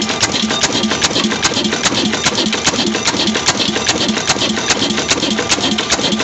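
Old 26 HP desi diesel engine running steadily while driving a flour mill: an even, fast clatter of sharp ticks, about five a second, from its valve gear and injection pump over the engine's running sound.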